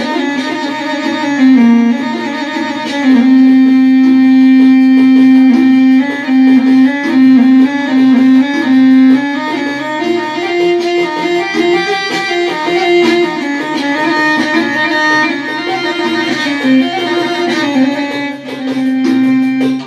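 Korg electronic keyboard playing an instrumental melody: a lead voice with long held notes broken by quick ornamented runs, over accompaniment.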